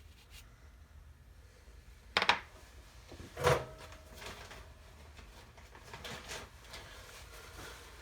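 Two sharp knocks of hard objects set down on a work surface, about a second apart, the second with a brief ring, followed by faint rubbing.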